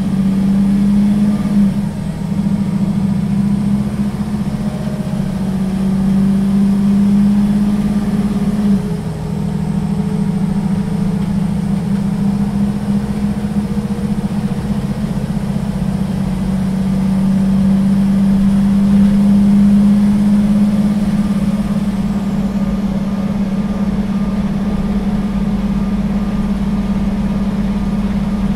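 Solaris Urbino III 12 city bus's diesel engine heard from inside the bus, pulling under a kickdown up toward about 90 km/h with a loud, steady drone. The drone dips briefly twice, about two and nine seconds in, as the automatic gearbox changes up, swells again later on, and near the end a faint high whine fades out.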